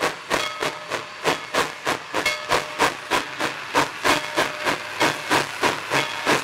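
Narrow-gauge steam locomotive chuffing in a steady rhythm of about three to four exhaust beats a second over a continuous hiss of steam. It is working steam and under way.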